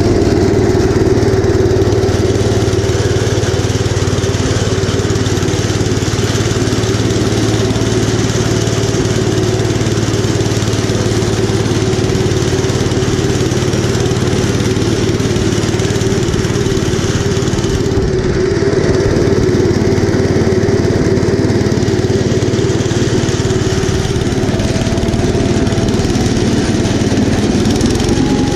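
1972 Gravely Commercial 10A walk-behind tractor, its 10 hp Kohler K241 single-cylinder engine running steadily while its front snowblower throws snow.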